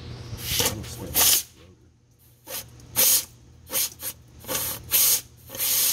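Compressed air hissing in a series of short blasts, about nine, through a transmission cooler line, purging the old transmission fluid out of the cooler.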